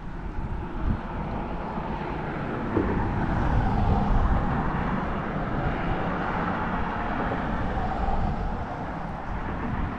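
A vehicle passing on the road over the bridge: its tyre and engine noise swells to a peak about four seconds in, then slowly fades.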